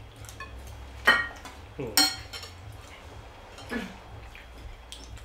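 Metal forks and spoons clinking against ceramic plates and bowls while eating, with two sharp ringing clinks about a second and two seconds in and a few lighter taps.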